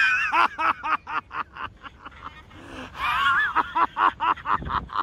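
A person laughing in two runs of quick 'ha-ha-ha' pulses, about seven a second, with a short pause between them.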